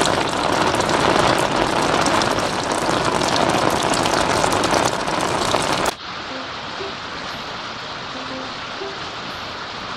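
Heavy rain pouring down, splashing into standing water and onto ceramic figurines. About six seconds in it cuts off suddenly and gives way to quieter, steady rain.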